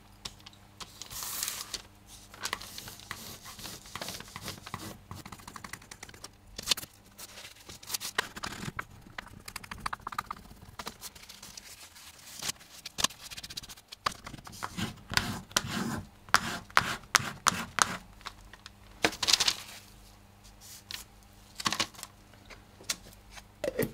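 Bone folder rubbing and scraping over paper laid on lino in uneven strokes, with scattered clicks and taps, pressing air and excess acrylic gel medium out from under the label release paper for an image transfer.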